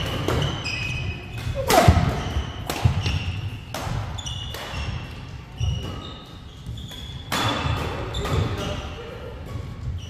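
Badminton rally on a wooden court: sharp racket hits on the shuttlecock, roughly one a second, with short squeaks of court shoes on the floor.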